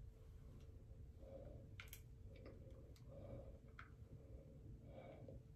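Near silence with a few faint, irregular clicks of long acrylic nails tapping on a phone.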